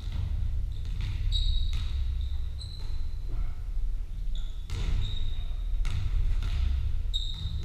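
Basketballs bouncing on a wooden sports-hall floor, irregular thuds echoing in a large hall. Several short high squeaks come between the bounces, over a steady low rumble.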